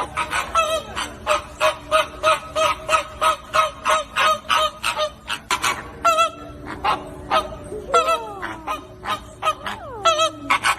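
Flamingos honking in a flock: quick repeated calls, about three a second, with a few longer calls that fall in pitch near the end.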